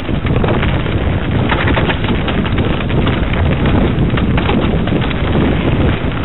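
Mountain bike riding fast down a gravel forest singletrack: wind buffeting the camera microphone over the crunch of tyres on loose stones, with constant small clicks and knocks as the bike jolts over the surface.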